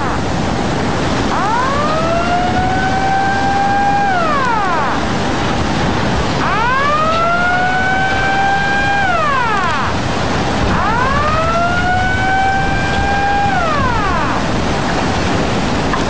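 Tsunami warning siren wailing three times, each wail rising, holding for a couple of seconds, then falling away, over a steady rushing noise of floodwater.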